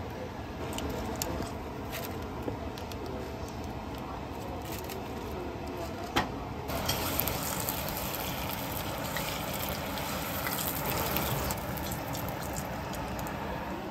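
Tempura deep-frying in hot oil, a steady sizzle with scattered crackles. A sharp click comes about six seconds in, after which the sizzle turns brighter and a little louder.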